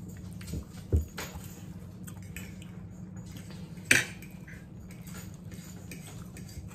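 Forks clinking and scraping on dinner plates as people eat, with a low knock about a second in and one sharp, loud clink near four seconds, over a steady low hum.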